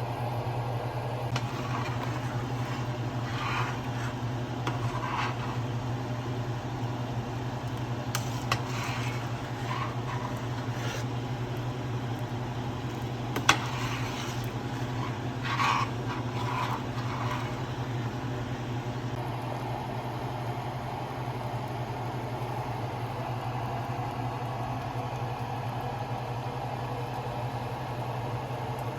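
A steady low hum, with a few light knocks and clinks scattered through it; the sharpest comes about halfway through.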